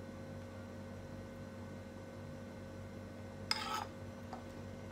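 Low steady electrical hum in a quiet room. About three and a half seconds in, a metal spoon scrapes briefly against the pan, followed by a faint click.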